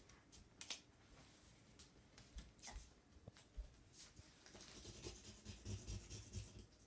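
Faint scratching of a pencil or marker drawing on paper. A few light taps and clicks come first, then steady rhythmic strokes for the last couple of seconds.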